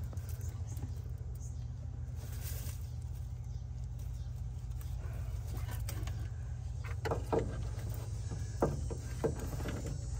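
A steady low mechanical drone, with a few short voice sounds about seven to nine seconds in.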